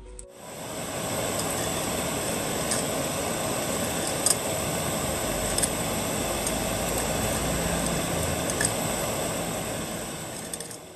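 Gas blowtorch flame hissing steadily under an enamel bowl of liquid, building up about a second in and fading near the end, with a few light clicks now and then.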